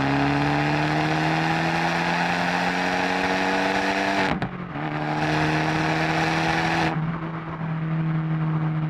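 Abarth 124 Spider's turbocharged 1.4-litre four-cylinder through its Monza exhaust, heard from the tail end under way: the engine note climbs steadily under acceleration, breaks off sharply for an upshift about four and a half seconds in, then pulls on at a lower pitch. About seven seconds in the throttle eases and the note goes softer and duller.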